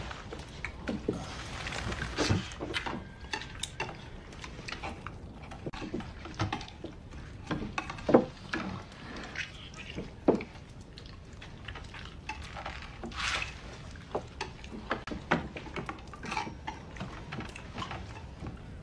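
Mealtime clatter: dishes, cups and spoons knocking and clinking at irregular moments, with a low murmur of voices underneath. The sharpest knock comes about eight seconds in.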